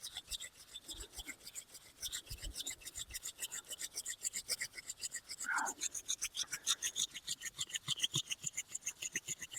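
Wooden hand drill spindle being spun fast in a hearth board: a rapid, even run of dry rasping friction strokes as wood grinds on wood to build hot dust. A brief falling sound comes a little over halfway through.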